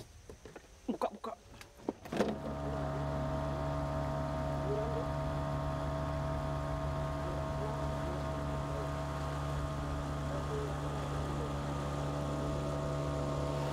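A few light clicks and knocks, then about two seconds in a small boat's motor comes in abruptly and runs at a steady, even pitch.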